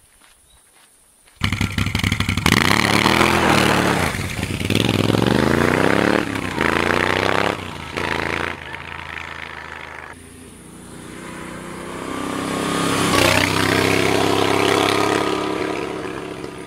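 Moto Guzzi V7's air-cooled 90° V-twin coming in suddenly about a second and a half in and revving up and down several times. Later the motorcycle rides by, growing louder, dropping in pitch as it passes, then fading.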